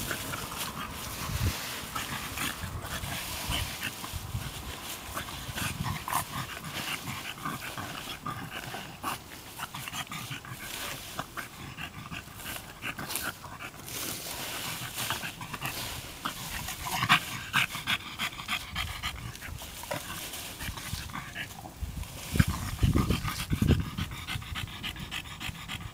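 A French bulldog breathing hard and snuffling as it bites and plays at a plastic leaf rake in a pile of leaves, with leaves rustling and crackling and the rake tines scraping through them. A few louder, deeper sounds come a few seconds before the end.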